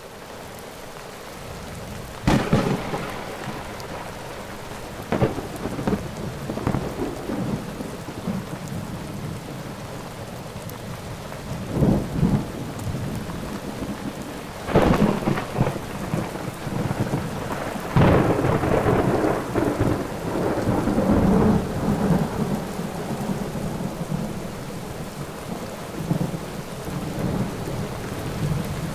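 Thunderstorm: steady rain with about five sharp thunderclaps, each rolling on into a low rumble. The loudest claps come about halfway through and about two-thirds in, the second followed by a long rumble.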